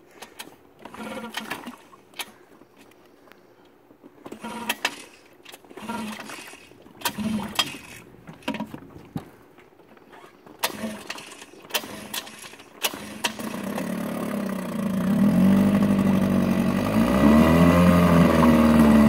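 1964 Mercury Merc 60 two-cylinder, two-stroke 6 HP outboard being pull-started on the choke after two years unused. Repeated tugs of the starter cord come first. The engine catches about thirteen seconds in and runs, growing louder, its pitch rising and falling as it is revved.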